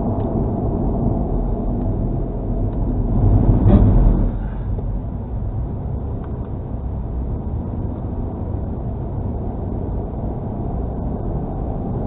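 Steady tyre and road noise from inside a car at highway speed, swelling to a louder dull thump about four seconds in, when the minivan ahead hits the back of a road-works convoy truck.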